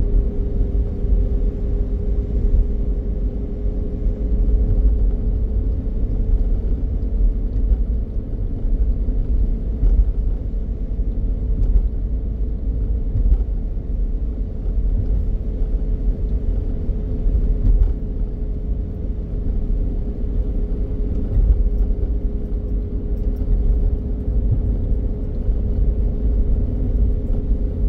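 Steady road noise of a car driving on a concrete road, heard from inside: a low, even rumble of tyres and engine with a faint steady hum running through it.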